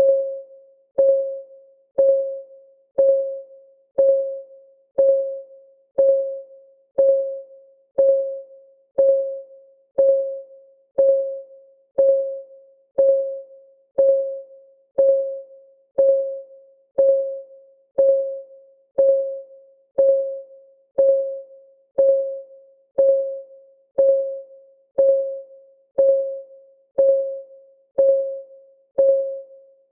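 Countdown timer's clock-ticking sound: one short pitched tick every second, each dying away quickly, in a perfectly even beat.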